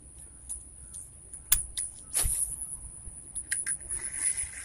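Spinning fishing reel being handled and cranked during a retrieve: a few sharp clicks and knocks, the loudest about a second and a half in, over a steady high-pitched whine.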